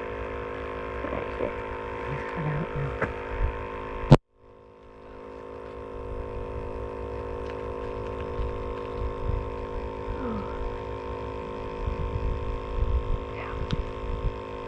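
Steady hum made of several fixed tones, over a low, uneven rumble. A sharp click about four seconds in is followed by a brief dropout, and then the hum fades back in.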